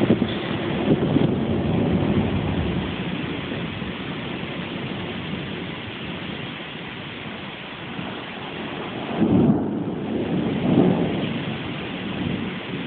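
Thunder rumbling over a steady hiss of rain, with two louder rolls of thunder about nine and eleven seconds in.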